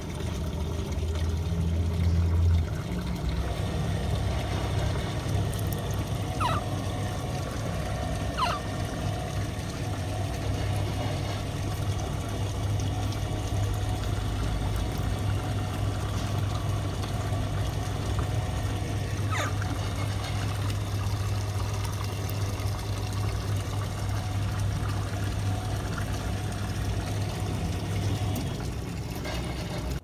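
Water pouring steadily into a shallow tank as an Alexandrine parakeet bathes and splashes in it, over a steady low hum. A few brief high squeaks come about 6, 8 and 19 seconds in.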